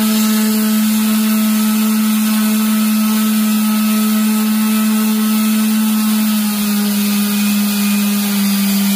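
Electric random orbital sander running on a rough-cut wooden slab, a steady motor hum with the rasp of sandpaper on wood; the hum drops a little in pitch about six and a half seconds in.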